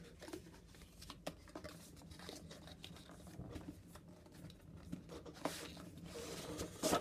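A cardboard product box being handled and its sleeve pulled open: scattered light scrapes, rustles and small clicks. The noise thickens towards the end, and a louder sharp scrape comes just before the end.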